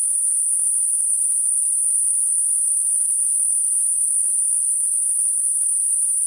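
Computer-generated Gaussian narrowband noise centred at 9.5 kHz: a steady, high-pitched hiss with no low or middle tones, unchanging throughout. It is made to mask high-frequency tinnitus.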